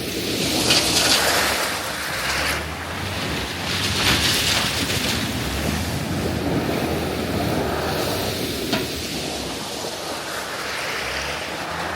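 Pickup truck's tyres rolling over loose gravel, a steady rushing crunch that swells and eases every few seconds, with a few sharp ticks from pebbles, mixed with wind noise on the microphone.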